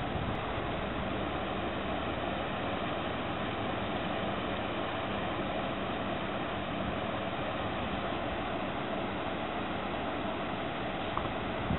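Steady rush of turbulent river water below a hydroelectric dam's spillway gates.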